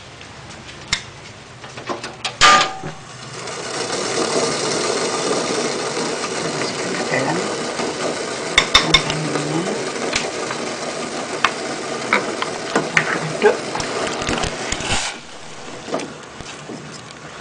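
Steady rushing noise from a steel pot of candil cooking in palm-sugar syrup on the stove. A ladle clinks against the pot several times. The noise cuts off suddenly near the end.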